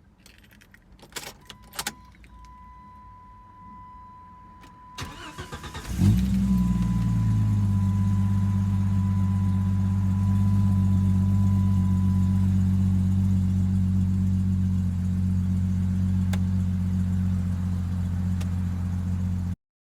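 A few clicks and a steady electronic warning tone, then a 1997 Jeep Grand Cherokee ZJ engine cranks briefly, catches about six seconds in and settles into a steady idle.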